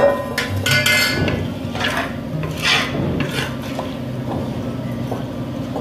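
Wooden spatula stirring rice in water in an aluminium pot: a sharp knock at the start, then several scraping, knocking strokes against the pot.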